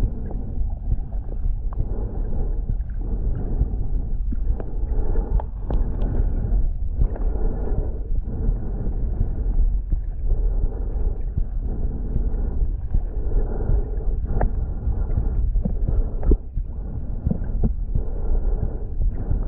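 Muffled underwater rumble of water moving around a submerged camera, with scattered small clicks and knocks.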